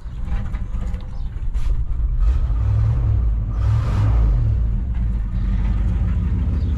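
Ford FE V8 in an old F-350 pickup running steadily at idle, with a light tapping from the fuel pump: the pump's arm is loose.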